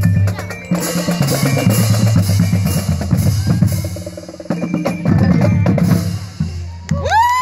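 Marching drumline playing a cadence: tuned marching bass drums playing stepped runs of pitched notes under snare drums and rimshots, with a brief pause about four and a half seconds in. Near the end the drumming stops and the crowd starts cheering.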